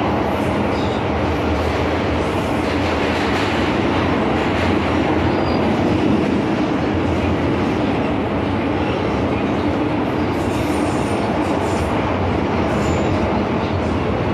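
MTR Kwun Tong Line M-Train running at speed, with a steady rumble of wheels on rail and traction noise.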